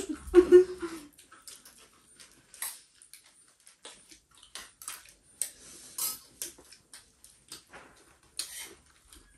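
Mukbang eating sounds: pani puri and chatpate being crunched and chewed close to the microphone, with scattered light clicks and crackles at irregular intervals.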